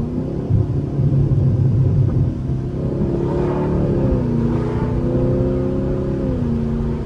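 Chevrolet Camaro SS's 6.2-litre V8 running through an AWE Track exhaust, held in full V8 mode. The engine note rises about three seconds in, holds, dips briefly, holds again and falls off near the end.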